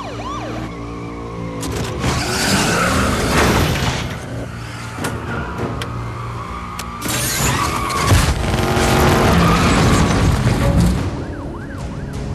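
A car-chase film soundtrack: police sirens wailing, and car engines revving hard with surges of tyre and road noise, over background music. The engines are loudest from about 2 to 4 seconds and again from about 7 to 11 seconds.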